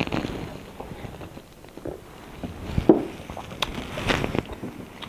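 Scattered table-top handling sounds: a plastic water bottle being put down and fingers working food on a plate, with short knocks and clicks, the sharpest about three seconds in.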